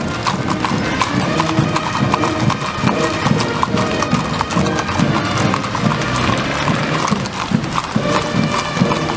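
Many cavalry horses' hooves clip-clopping on asphalt in a dense, irregular clatter. A mounted military fanfare band plays a march under it.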